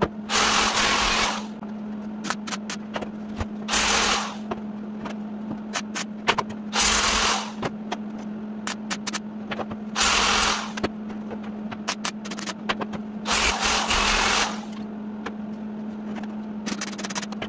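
MIG welder stitching a thin sheet-metal window panel into a truck cab: about six spitting welds of roughly a second each, with short tack welds between them, over a steady low hum.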